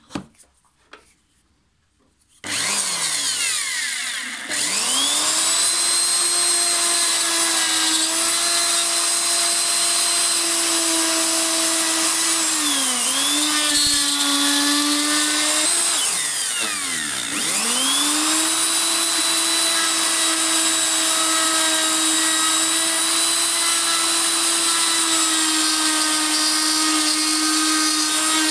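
Parkside POF 1200 C2 plunge router, a few clicks and then the motor starting a couple of seconds in, spinning up to a steady high whine while the bit cuts into a wooden block to hollow out a box. Its pitch sags twice in the middle and comes back up.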